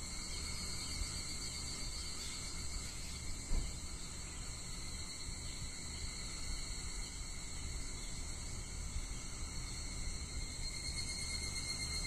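A chorus of higurashi (Japanese evening cicada, Tanna japonensis) calling steadily, with one brief thump about three and a half seconds in.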